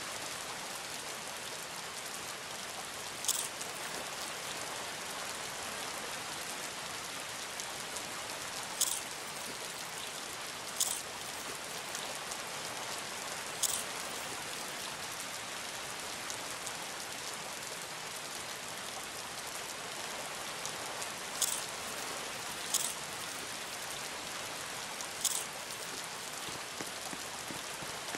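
A steady hiss like falling rain, with seven sharp ticks like heavy drops striking something, a few seconds apart at uneven intervals.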